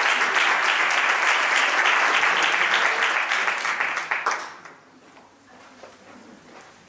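Audience applause: dense clapping from many hands that dies away about four and a half seconds in, leaving a quiet room.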